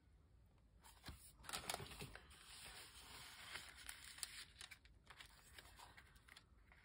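Faint rustling, sliding and light tapping of paper and cardstock as handmade journal tags and cards are handled and slipped into a paper pocket.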